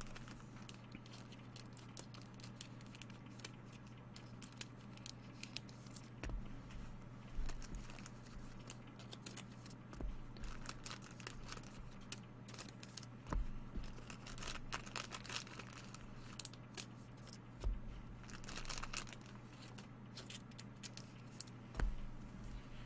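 Trading-card packaging being handled and opened: irregular crinkling and tearing of wrappers, with scattered light clicks of cards and packaging being handled, over a steady low hum.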